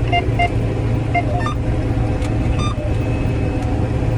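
Combine harvester running steadily under load, heard from the cab as a steady low drone, with a few short high beeps in the first second and a half.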